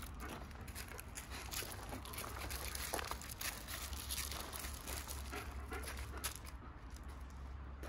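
Wolfdogs' paws and footsteps crunching and scuffing on loose gravel, a dense, irregular patter of small crunches.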